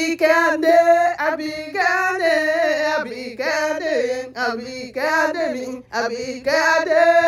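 A woman singing a Yoruba birthday song solo, in drawn-out melismatic phrases, ending on a long held note. A faint steady hum lies underneath.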